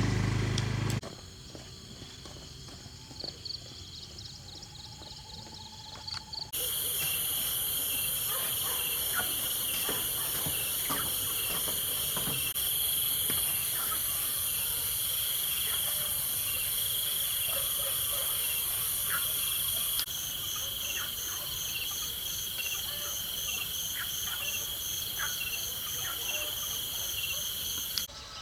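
Chorus of forest insects, steady high trilling and buzzing with a fast even pulse. It jumps suddenly louder about six seconds in and changes its pulse pattern about two-thirds of the way through.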